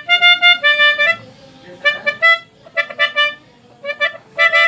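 Indonesian bus telolet horn, a multi-tone musical air horn, playing a tune of short notes that step up and down in pitch, in several bursts with brief pauses between them.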